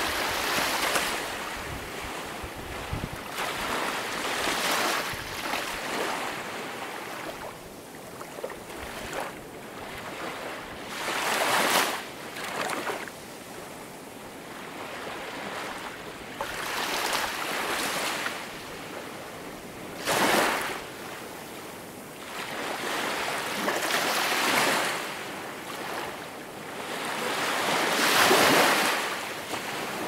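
Small waves washing up on a pebble shore, each wash swelling and fading again every few seconds.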